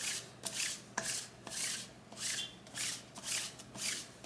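Sticky lint roller rolled back and forth over a fleece hoodie: a crackling, rasping stroke about twice a second as the adhesive sheet peels off the fabric.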